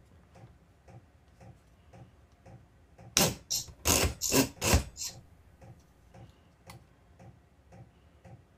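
Faint, steady ticking about twice a second, like a clock. About three seconds in comes a quick run of six or seven loud knocks and rattles lasting about two seconds, from the plunge router being handled and adjusted.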